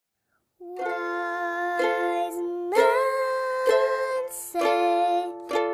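Background music of plucked-string chords, struck about once a second and starting about half a second in.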